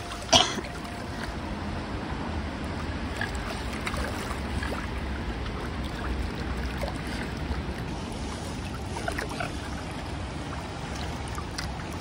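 Wind buffeting the microphone over lake water lapping at the shore, a steady low rumble with a watery trickle. A single sharp knock sounds near the start.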